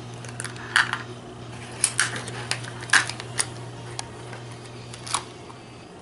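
Plastic magnetic building tiles clicking against each other and the table as they are handled and snapped together, about eight sharp, irregular clicks.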